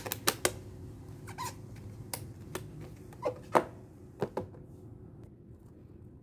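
A clear plastic food container being handled and set on a wooden table: a scattered series of sharp plastic clicks and taps, thinning out after about four seconds, over a faint steady hum.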